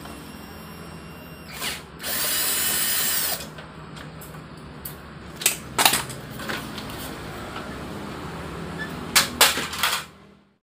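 A cordless screwdriver runs steadily for about a second and a half, loosening the copier's rear cover screws. Sharp clicks and knocks from the cover panels being handled follow, over the copier's steady low hum.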